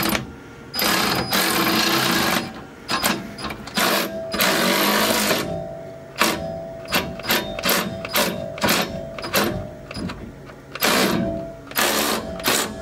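Cordless ratchet running the transmission jack to raise a fuel tank, its motor whining in on-off bursts: two longer runs, then a string of short pulses, and another longer run near the end.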